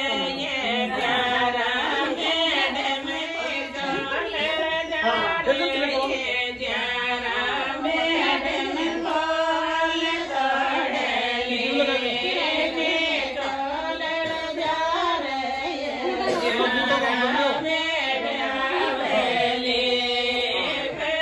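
Several women singing a folk song together, with no break.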